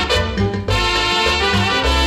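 Salsa music with a brass section and a steady bass line.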